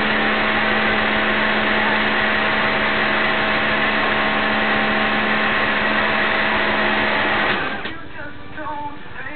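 Pressure washer running steadily with a constant motor hum, cutting off suddenly about seven and a half seconds in.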